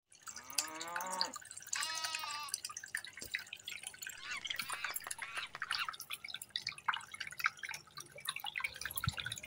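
Two short animal calls in the first two seconds, the first rising in pitch and the second a wavering bleat. Then water dripping and splashing in a small tabletop rock fountain, a steady patter of little drops.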